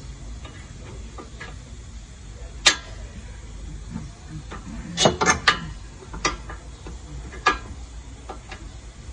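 Kia Forte's front right suspension knocking with scattered sharp clunks over a low steady road rumble, the sign of a worn stabilizer link. The loudest single knock comes between two and three seconds in, and a quick run of three or four knocks follows about five seconds in.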